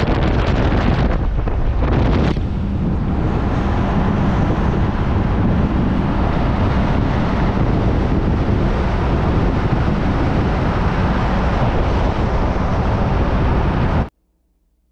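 Wind buffeting the microphone of a vehicle driving at speed, with the steady rumble of engine and tyres underneath. The rush eases slightly about two seconds in and cuts off abruptly near the end.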